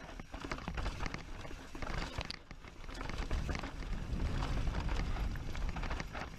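Crunching and clattering on a rocky dirt trail, many quick irregular clicks, over a low wind rumble on the microphone that gets louder about three seconds in.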